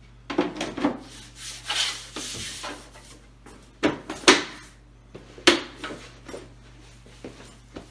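Black moulded ball-tray end pieces being set and slotted onto the ends of a foosball table's cabinet: a series of knocks and clatters with some scraping in between, the loudest knock about four seconds in.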